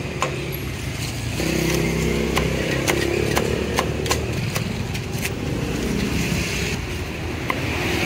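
Meat cleaver chopping roast meat on a wooden chopping block in sharp, irregular chops. A motorcycle engine runs close by from about a second and a half in, then fades after a few seconds, over street noise.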